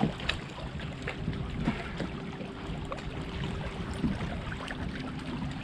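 Water sounds around a kayak, with many small knocks and clicks against the hull and a faint steady hum.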